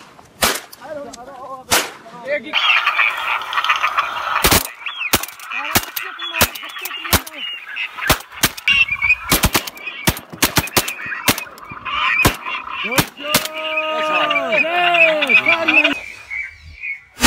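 Shotguns firing over and over, often several shots in quick succession, over a dense din of waterfowl calling. Near the end the calls include a few drawn-out, arching quacks.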